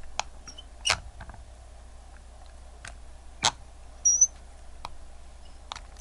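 A steel spring bar pusher clicking and scraping against a quartz watch movement as it probes for the crown-release button, with a short high squeak of metal on metal about two-thirds of the way through. There are several sharp clicks, the loudest about a second in and about halfway.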